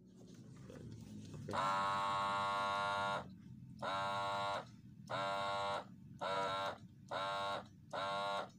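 Small motor of an electric gallon-bottle water pump whining, switched on and off with a push button on the sprayer handle. It runs once for about a second and a half, then in five short runs of about half a second each, starting and stopping cleanly.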